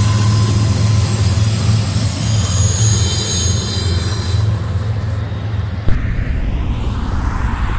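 Diesel freight locomotive and hopper cars of a BNSF train rolling away: a steady engine hum under the wheel and rail noise. About six seconds in, a click and an abrupt switch to the low rumble of another diesel-hauled train approaching.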